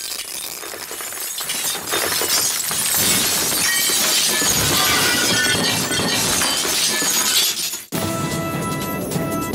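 Cartoon sound effect of a giant glass figure cracking and shattering: a dense cascade of breaking, tinkling glass that builds over several seconds. It cuts off suddenly about eight seconds in, and music takes over.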